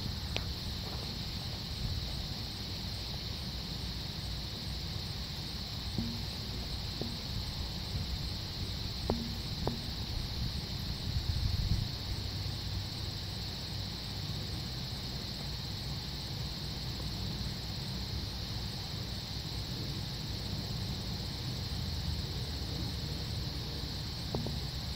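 Steady high-pitched insect chorus, cricket-like, with a low rumble of wind or handling underneath and a few faint clicks.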